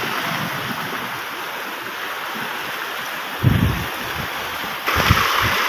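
Heavy rain pouring down steadily, a dense hiss that grows louder about five seconds in. A few low thumps come through about three and a half seconds in and again near five seconds.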